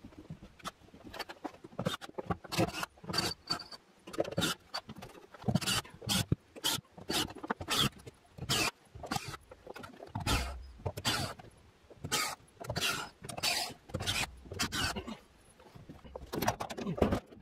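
Irregular knocks, scrapes and thumps from hands-on work, one to three a second, with a few heavier low thumps in the second half.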